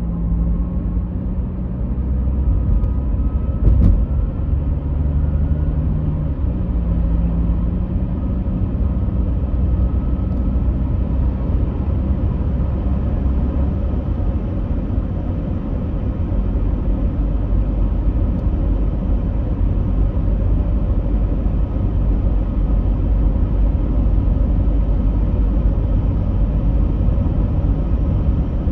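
A steady low rumble, with a faint wavering hum during the first several seconds and a single knock about four seconds in.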